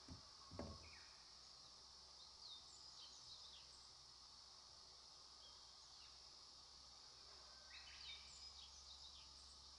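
Faint, steady deep rumble of distant heavy machinery working, heavy in low frequencies. Over it, a steady high insect hiss and two short runs of bird chirps, with two small button clicks right at the start.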